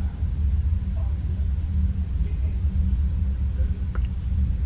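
Steady low background rumble and hum, with two faint clicks near the end.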